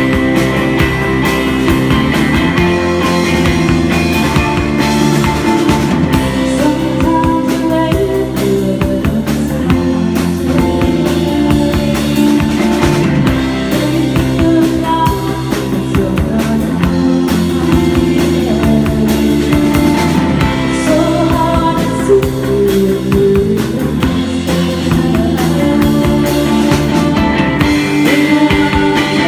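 Live rock band playing: a strummed Stratocaster-style electric guitar over a drum kit, with a woman singing into the microphone.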